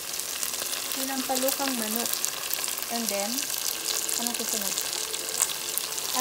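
Chicken pieces frying in a pan of tomato-based sauce, a steady sizzling hiss with scattered small pops.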